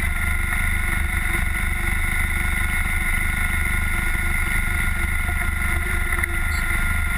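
Redline Revolt off-road buggy's engine running steadily at an even pitch as it cruises along a dirt track, heard from on board.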